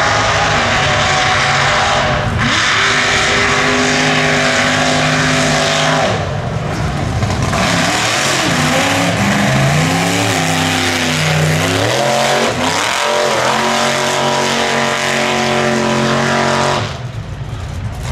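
Mega truck racing engine running hard at high revs, its pitch holding steady for a few seconds at a time and swooping up and down around the middle, over a broad rush of tyres spinning through dirt. The engine note drops away briefly near the end.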